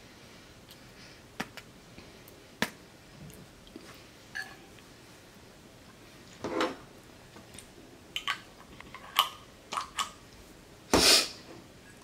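Scattered small clicks and taps of tableware and a condiment jar being handled: chopsticks, a plastic spoon in a glass bowl and a jar of hot mustard. A louder short knock near the end.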